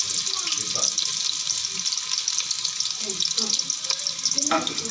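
Sliced onions sizzling in hot oil in a pan: a steady, dense crackle.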